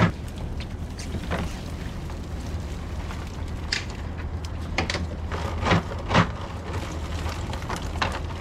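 Boat's outboard engines idling with a steady low hum, with several sharp knocks and taps scattered through.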